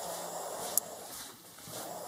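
A person breathing heavily in slow, even breaths while walking, with a single sharp click about three-quarters of a second in.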